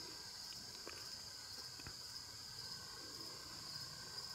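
Insects chirring steadily in a high, even band, with a few faint soft ticks about a second and two seconds in.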